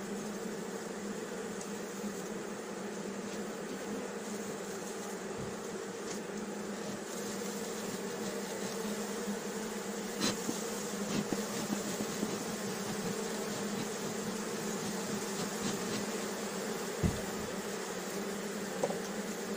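Honeybee colony humming steadily from a strong, crowded hive opened for inspection, its frames thick with bees. A few light clicks come about halfway through.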